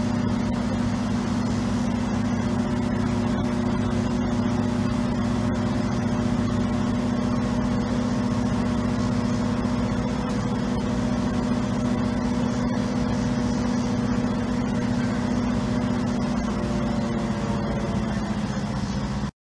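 Diesel engine of heavy construction equipment running steadily at constant speed, an even low drone. It cuts off suddenly near the end.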